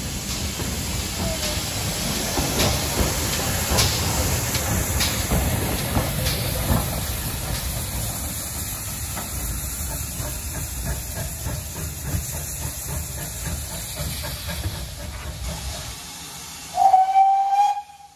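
GWR 57xx-class pannier tank locomotive 7714 working under steam: a steady hiss of steam with uneven chuffs. Near the end, a short whistle blast of about a second.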